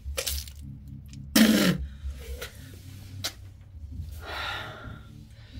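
A person's non-speech vocal sounds: a loud, sharp, sneeze-like burst about a second and a half in, with shorter bursts around it, and a long breathy exhale near the end.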